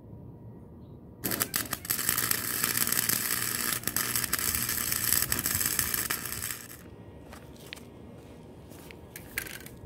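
Electric arc welding on steel fork tubing: a steady crackling, sizzling hiss starts about a second in and runs for about five and a half seconds before cutting off. A few faint clicks follow near the end.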